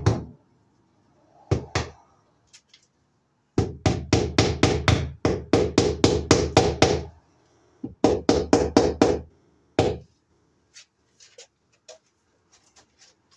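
Hammer blows in quick runs of about four a second, with pauses between runs, fastening the new cable to the overhead wood; a few light clicks near the end.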